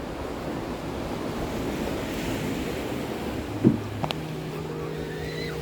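Ocean surf washing on the shore, with wind buffeting the microphone. A single sharp knock comes a little after three and a half seconds in, and a steady low hum starts about four seconds in.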